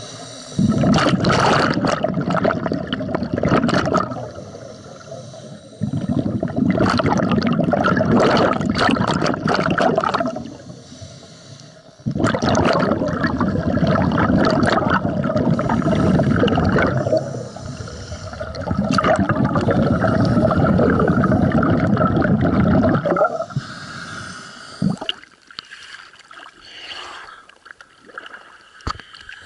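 Scuba regulator exhaust bubbles rushing and gurgling underwater as a diver breathes out, in four long exhalations with quieter gaps for the in-breaths. About five seconds from the end it gives way to quieter, scattered splashing of water at the surface.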